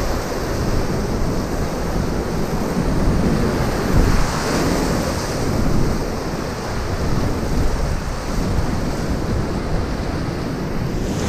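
Whitewater rapids rushing and churning around a solo open canoe, with waves splashing over the bow and wind buffeting the microphone.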